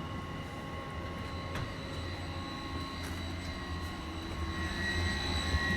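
Air handling unit fans of a ship's HVAC system running, a steady low drone with thin whining tones above it, growing louder near the end.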